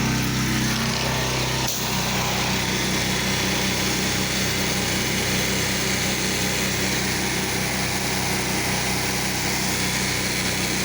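Small gasoline engine of a pressure-washing rig running steadily, its note shifting slightly about two seconds in.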